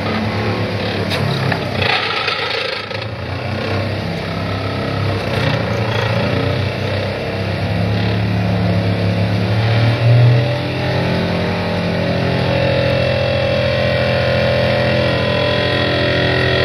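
Excavator-mounted vibratory pile hammer driving a steel sheet pile: a steady mechanical drone over the excavator's diesel engine, swelling briefly about ten seconds in.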